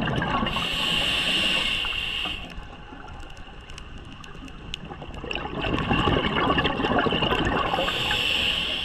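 Underwater ambience of a scuba diver breathing through a regulator: a hissing inhale early on and another near the end, with a gurgling rush of exhaled bubbles in between.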